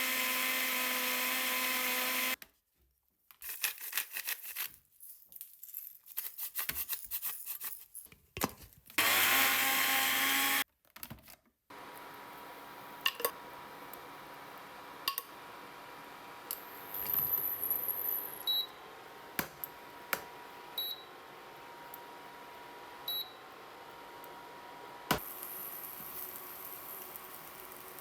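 Electric blender running in two short bursts, each cut off abruptly, with scattered clicks and knocks between them. After that come a faint steady hum and occasional sharp clicks and taps.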